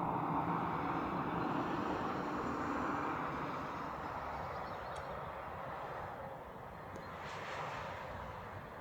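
Distant engine rumble of something passing by, loudest at the start and slowly fading, with a short hiss near the end.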